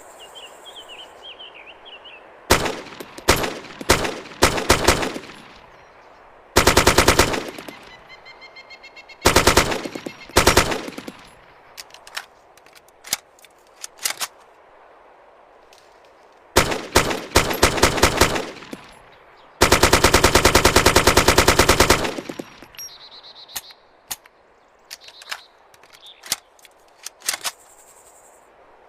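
AKS-74U 5.45 mm carbine firing: a few single shots, then short fully automatic bursts and one long burst of about two and a half seconds, with quieter scattered clicks and shots in between.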